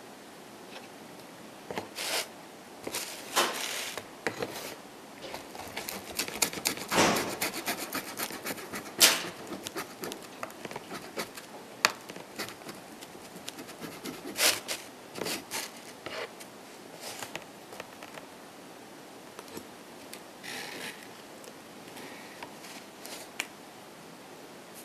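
Close-up eating sounds of a person chewing a salami pizza slice: irregular crunching and sharp little clicks, starting about two seconds in.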